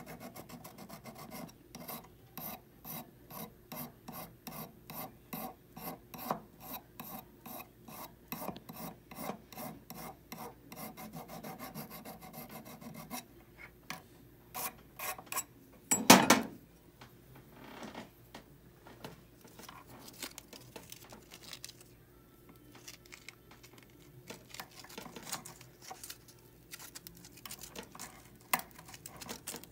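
Hand file rasping across a hollow 14kt gold bangle held against a wooden bench pin, in quick, regular strokes. About halfway through there is one loud knock, and after it the strokes come lighter and irregular.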